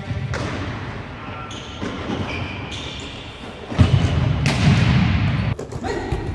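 Futsal ball being kicked and bouncing on an indoor court in a large sports hall, a run of thuds with the loudest kick nearly four seconds in.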